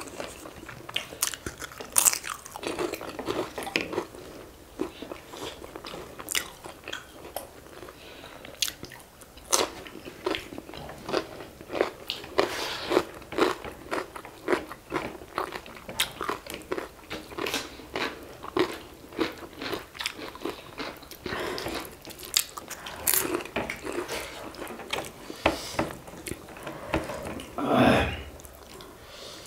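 Two people eating rice and pork curry by hand, close to the microphone: steady chewing with many short crunches and wet mouth sounds, and one louder, longer noise near the end.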